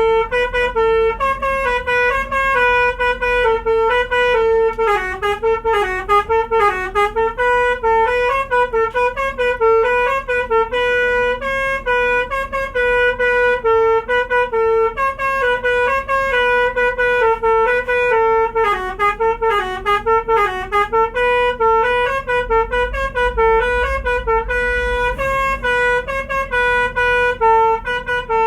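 Bus telolet horn playing a continuous, rapid melody of short steady-pitched notes, with a low rumble beneath that grows heavier for a few seconds near the end.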